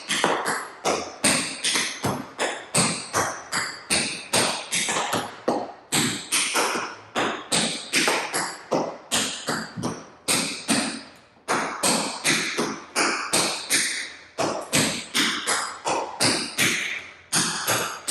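Tap shoes striking the floor in a quick run of taps as a tap dancer performs a combination: riffs of toe, scuff, heel drop and dig, then step-heels, a step-heel turn and shuffle ball changes. The taps come several a second, with a brief pause a little past the middle.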